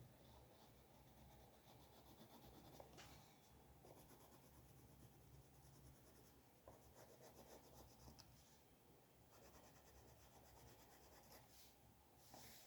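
Faint scratching of a drawing tool on paper, in short runs of strokes with brief pauses.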